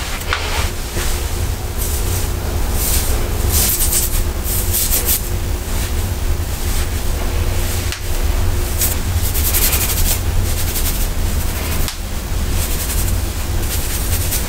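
Steady rushing noise with a low rumble and a faint hum, and short crackly rustles every few seconds as hands tousle and scrunch curly hair.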